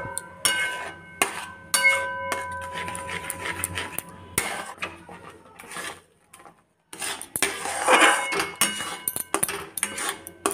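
Steel spatula scraping and knocking against a metal kadai while stirring thick halwa, the pan ringing briefly after some of the knocks. The stirring breaks off for about a second, six seconds in, then resumes.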